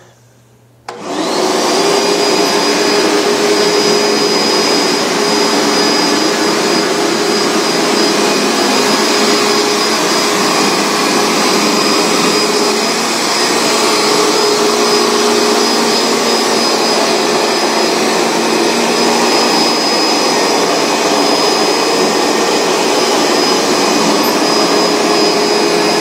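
Hoover Max Extract All-Terrain carpet cleaner switching on about a second in, then running loudly and steadily, a rush of suction with a steady whine, as it is worked over the carpet.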